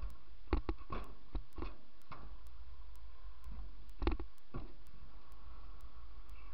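Kick scooter rolling over skatepark concrete, a steady low rumble under two runs of sharp clicks and knocks from the scooter: several between about half a second and two seconds in, and a few more around four seconds in.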